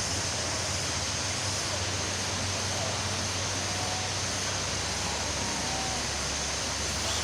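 Steady tropical forest ambience: an even hiss with a constant high-pitched drone, like insects, running over it throughout. A few faint short calls or voices come through in the middle.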